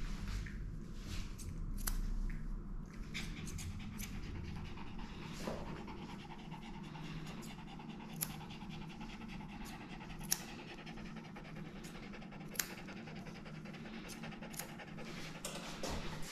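Maltese dog panting rapidly and steadily over a constant low hum, with a few sharp clicks.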